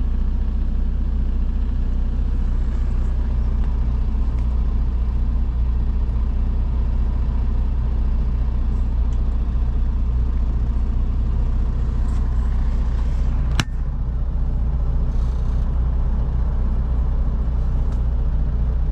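Semi-truck's diesel engine running steadily, a low even drone heard from inside the cab. About two-thirds of the way through there is a single sharp knock.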